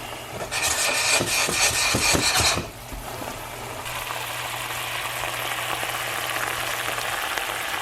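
Mustard and stock sauce simmering and bubbling in a pan as it reduces, louder for the first couple of seconds and then settling to a steady simmer. A steady low hum runs underneath.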